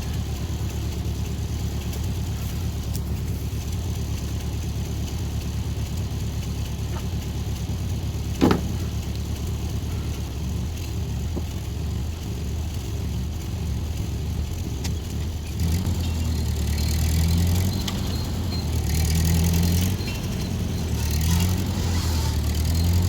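Small tractor engine running steadily at low revs, then revving up in several uneven surges in the last third, as if working under load. One sharp metal clank about a third of the way in.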